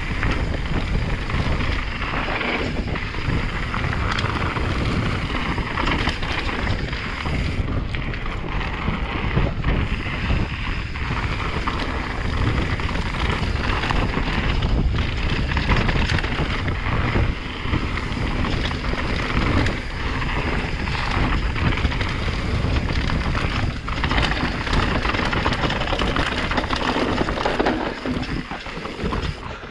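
Mountain bike descending a rough enduro trail at speed, heard from an action camera on the rider. Wind buffets the microphone over a constant rumble of tyres on dirt and rock, with a running rattle of knocks from the chain and suspension over the bumps.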